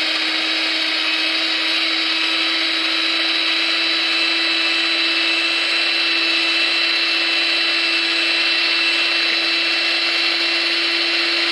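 Electric hand mixer running steadily, its beaters whipping cream in a stainless-steel bowl until it thickens and foams. A continuous motor hum with a high whine over it.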